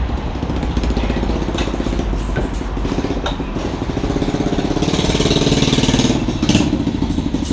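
Motorcycle engine running close by, louder from about five seconds in.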